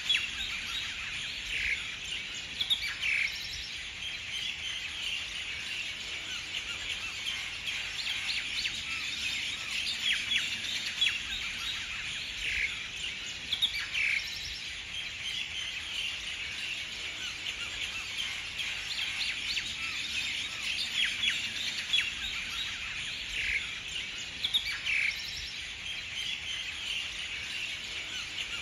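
A dense chorus of many small birds chirping and twittering continuously, with a few louder single calls standing out now and then.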